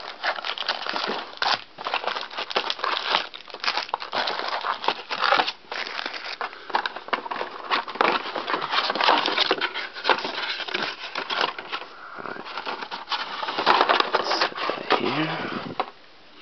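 Plastic wrapping on a box of trading cards and its packs being torn open and crumpled by hand: continuous, uneven crinkling and crackling.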